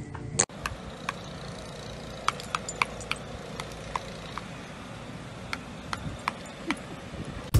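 A metal kinetic wind spinner turning, giving light irregular metallic clicks, one to three a second, over a steady outdoor hiss. A single sharp click comes about half a second in.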